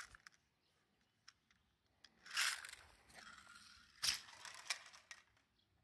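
T238 MkIII airsoft water-bead grenade thrown with a tumbling throw. A rustling burst comes about two seconds in, then a sharp snap about four seconds in as it lands and pops open. Light clicks follow as its load of about 100 BBs scatters.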